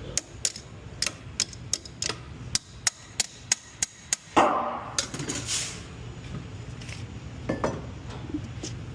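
Hammer striking a rusted brake component about a dozen times in quick, irregular blows to knock it loose. About four seconds in there is a louder metallic scrape, followed by lighter clinks and knocks.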